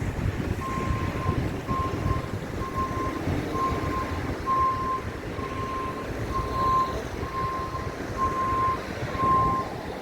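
A construction vehicle's reversing alarm beeping steadily at one pitch, about a dozen beeps at a little over one a second, over a constant low rumble.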